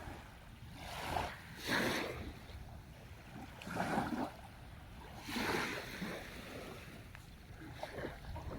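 Sea waves washing onto the shore: a steady hiss of surf with several surges a second or two apart, each swelling and fading.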